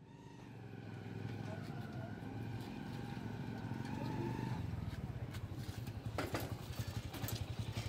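Motor vehicle engines idling and running, with a low rhythmic throb through the second half and a few light clicks near the end.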